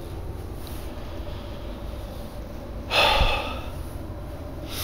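A short, sharp breath from the person holding the camcorder, close to the microphone, about three seconds in and lasting under a second, over a steady low background rumble.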